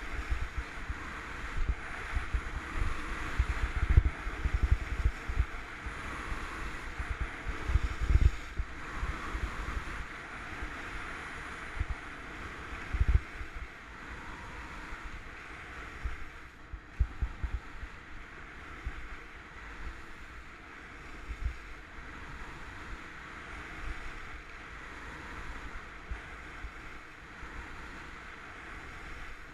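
Wind buffeting the microphone of a helmet-mounted action camera, with gusts strongest in the first half, over a steady hiss of skis sliding and carving on groomed snow.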